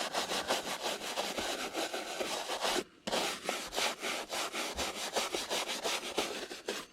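Brush scrubbing fuzzy burrs off freshly V-carved PVC in quick back-and-forth strokes, several a second, with a short pause about three seconds in.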